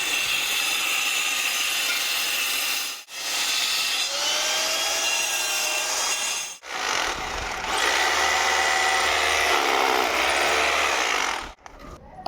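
Angle grinder cutting metal, running continuously with two brief breaks and stopping near the end.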